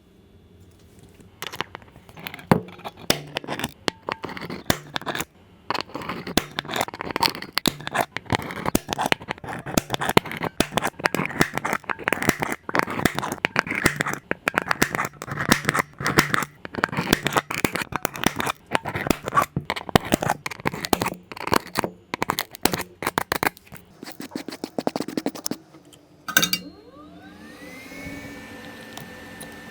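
Cracked glass on an iPhone 12 Pro's back being scraped and broken away: a dense, irregular run of crunching and scratching that stops abruptly about 26 seconds in. A steady hum with a rising tone follows near the end.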